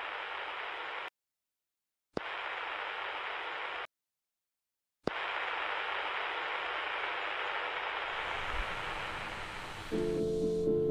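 Bursts of static hiss that switch on with a click and cut off abruptly into dead silence: about a second and a half, then nearly two seconds, then a longer stretch of about five seconds. Near the end a sustained musical chord comes in over the hiss.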